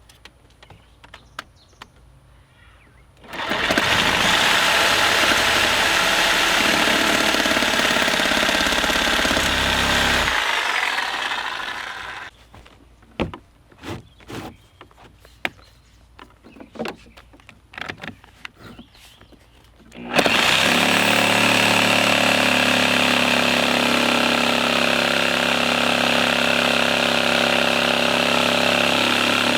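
A corded electric power saw running and cutting wood, in two long runs: the first starts about three seconds in and fades out around twelve seconds, and the second starts about twenty seconds in and runs steadily. Scattered clicks and knocks come between the runs.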